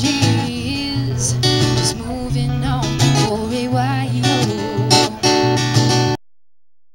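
A song with strummed acoustic guitar and a singing voice, cutting off abruptly about six seconds in to dead silence.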